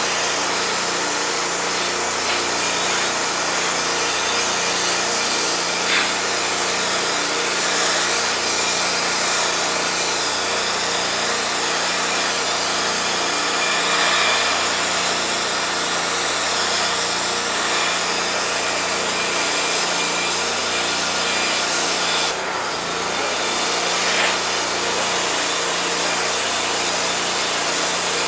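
High-pressure water jet from a Unimanix ARH-4070GDCS hot-water pressure washer blasting a metal plate to strip paint, stickers and rust: a loud, steady hiss of spray on metal with a low hum under it. The spray dips briefly about three quarters of the way through.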